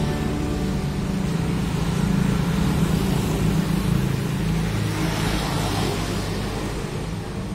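Street traffic: a steady low rumble of passing vehicles, with one vehicle going by loudest a little past halfway.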